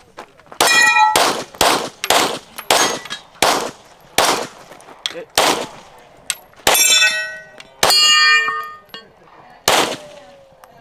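Semi-automatic pistol shots at steel plate targets, about eleven at an uneven pace with a couple of short gaps. Several hits ring on with a metallic ping.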